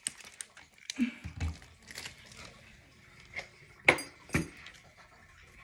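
Handling noises: light clicks and rustles, a soft thump about a second in, and two sharp knocks about half a second apart roughly four seconds in, which are the loudest sounds.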